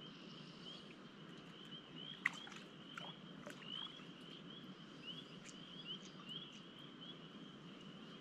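Faint chorus of spring peepers: many short rising peeps, two or three a second, blending into a steady high trill. A few small clicks sound over it, the sharpest about two seconds in.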